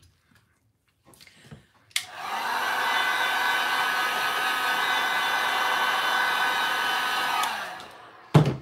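Heat gun clicked on, blowing steadily with a rush of air and a high whine for about five seconds, then switched off and winding down. A short thump follows near the end.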